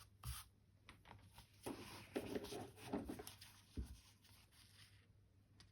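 Faint handling of fabric and paper on a binder cover: a light tap, then a second or so of rustling and scraping as the material is pressed and smoothed, and a soft knock a little later.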